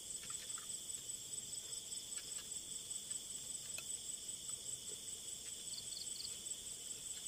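Steady, high-pitched trilling of a night insect chorus, crickets, with a few faint ticks and rustles.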